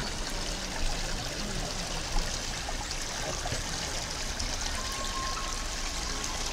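Water flowing in a stream, a steady trickling.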